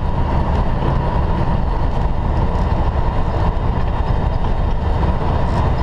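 Steady low rumble of a semi truck's diesel engine and road noise heard inside the cab while driving.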